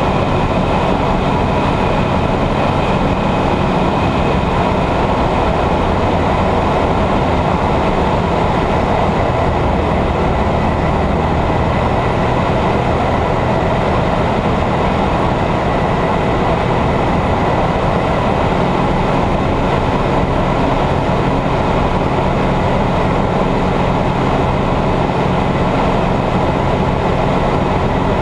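Ultralight aircraft's engine and propeller droning steadily in flight, heard from inside the cabin.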